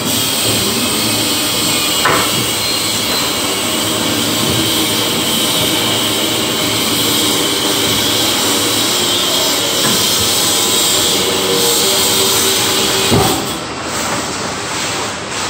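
Husqvarna 110-volt electric concrete saw running steadily, with a high whine over an even rushing noise. A single thump sounds near the end.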